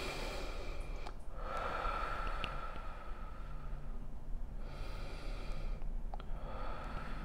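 A woman taking slow, deep breaths in and out close to a clip-on microphone, leading a guided meditation breathing exercise: four long breaths, each lasting a second or two, with short pauses between.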